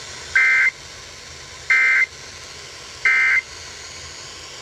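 Emergency Alert System end-of-message signal: three short bursts of SAME digital data tones, each about a third of a second long and a little over a second apart, over a steady radio hiss. The bursts mark the end of the alert broadcast.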